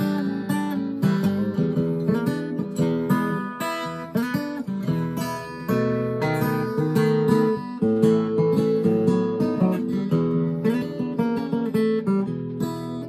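Acoustic guitar strummed in a steady rhythm, chords changing as it goes, with no singing over it.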